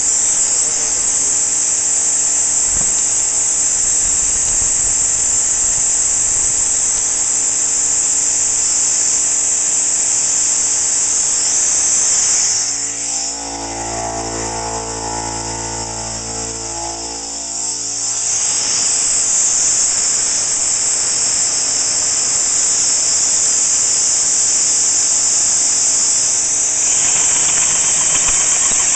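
Steady high-pitched hiss of air blowing onto the steel plate, with a motor hum under it; for about five seconds in the middle the hiss dips and a lower hum comes forward. About two seconds before the end, an electric drill with a 1.5-inch Diablo carbide-tipped hole saw starts cutting into the 1-inch steel plate.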